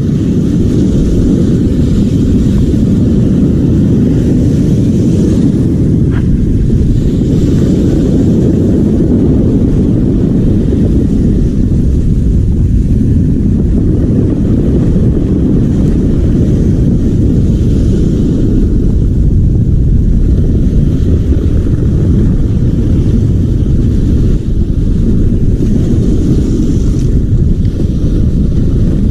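Strong wind rumbling steadily on the microphone, loud and low, over the wash of surf breaking on the rocks, which swells now and then.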